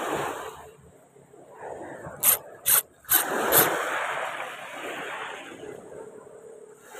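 Fishing tackle being handled close to the microphone while working a squid lure: rasping and rubbing from the rod and reel, with four sharp clicks a little over two seconds in.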